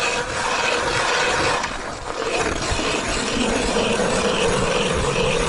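Hand ice auger drilling into ice, its cutting blades grinding and scraping steadily as the handle is cranked round, easing off briefly about two seconds in.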